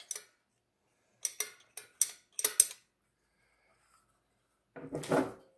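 Metal push rod clicking and clinking against the valve-train parts of a Briggs & Stratton engine as it is worked into place by hand: several sharp clicks in the first three seconds, then a short rattle near the end.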